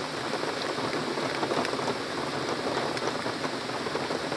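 Heavy tropical-style downpour: rain falling steadily in a dense even hiss, with countless small drop taps on leaves and surfaces.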